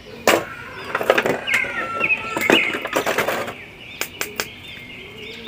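Clear plastic packaging crinkling and clicking as small plastic action figures are handled and pulled out. A few short high chirps come in the middle.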